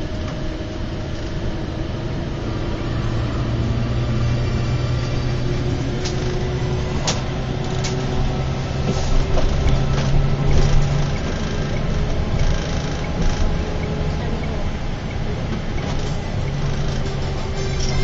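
Bus engine drone and road noise heard from inside the moving coach's cabin, with a few sharp clicks near the middle.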